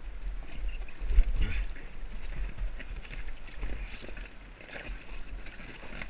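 Inflatable raft sliding off a bank into the water: the rubber hull rubbing and bumping, with water sloshing around it and wind rumbling on the action camera's microphone. A thump about a second in is the loudest moment.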